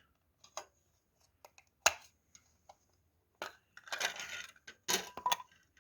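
A small electronics control box being opened by hand: scattered light clicks, a sharp knock about two seconds in, then a couple of seconds of scraping and clattering as the case is handled.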